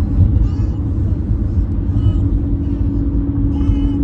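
Road noise inside a moving car: a steady low rumble of tyres and engine with a steady hum.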